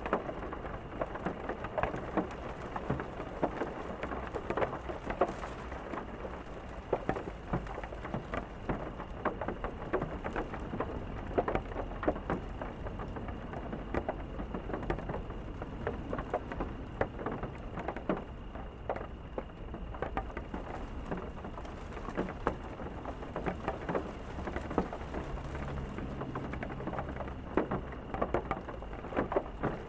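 Steady rain, with many individual drops clicking sharply on a near hard surface over a continuous hiss. A low rumble runs underneath, with a faint low hum for a few seconds near the end.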